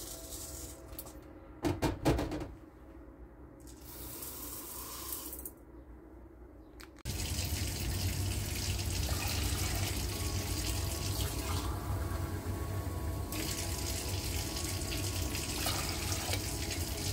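Water pouring in a steady stream into a stainless steel pot of raw rice, starting abruptly about seven seconds in. A couple of sharp knocks come shortly after two seconds.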